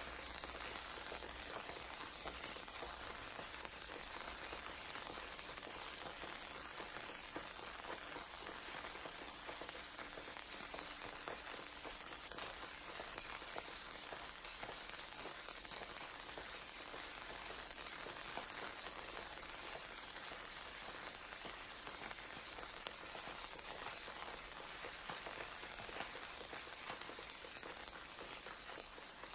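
A steady, dense crackling patter, like rain falling on a surface.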